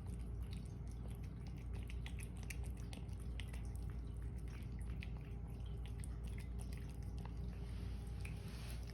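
A cat eating from a bowl, with many small irregular chewing and licking clicks over a steady low hum.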